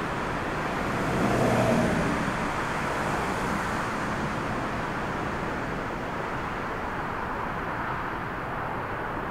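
Jet engines of a wide-body twin-jet airliner running steadily as it rolls down the runway after landing, swelling briefly about a second in.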